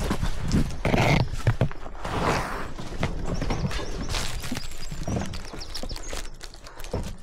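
Someone clambering over a rough concrete wall through ivy: irregular knocks and bumps of hands, shoes and a body-worn camera against the concrete, with rustling leaves and scraping clothing.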